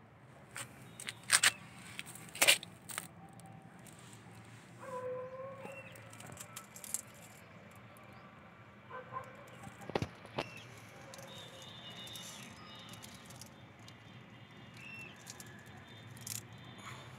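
Open-air ambience with a low steady hum, a few sharp clicks (two loud ones near the start, more midway), and two short animal calls.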